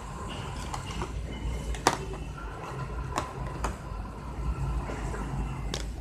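A few sharp clicks and taps of test leads and clips being handled on a bench, the loudest about two seconds in, over a low steady hum.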